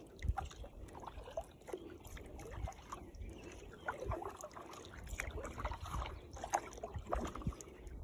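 Kayak paddle strokes in lake water: soft, irregular splashes and drips from the paddle blades.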